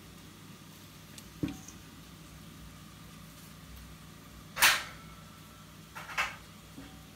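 Metal kitchen clatter from a foil-lined baking tin and oven rack being handled: a soft knock about a second and a half in, a sharp clatter near the five-second mark (the loudest), and another about a second later, over a faint steady hum.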